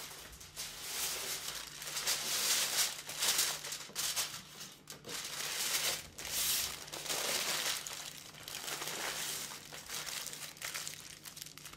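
Aluminium foil crinkling and crumpling in bursts as it is folded and crimped by hand around a large piece of meat.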